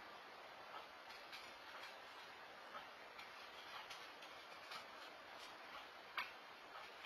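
Near silence: the steady hiss of a security camera's microphone in a still room, with faint, irregular ticks and one sharper click about six seconds in.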